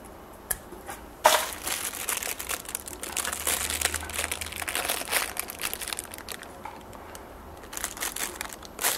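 Fingers handling a small circuit board with LEDs pushed into it: scratchy, crinkling handling noise with clicks. It starts with a sharp click about a second in, runs for about four seconds, and returns briefly near the end.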